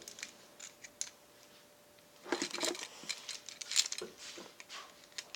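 Plastic clicks and rattles of a Transformers MechTech Ratchet action figure being handled as its joints are twisted and parts unpegged: a few sparse clicks, then a busy run of clicking from about two seconds in until near the end.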